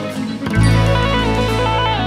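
Background music with guitar; a low sustained bass note comes in about half a second in under a moving melody.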